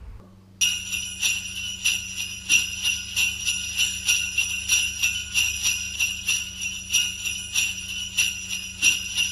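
Jingle bells shaken in a steady rhythm, about three shakes a second, starting suddenly about half a second in, over a low steady hum.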